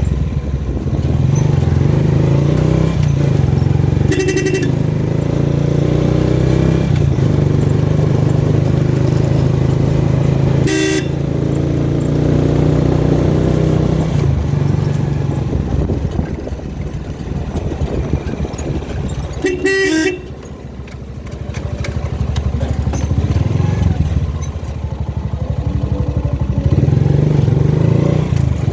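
Motorcycle engine running steadily on the road, with three short horn toots; the engine eases off just after the third toot and then picks up again.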